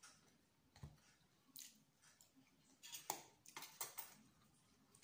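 Faint eating sounds: a person chewing fried chicken, with soft wet mouth clicks and smacks, a cluster of sharper clicks about three to four seconds in.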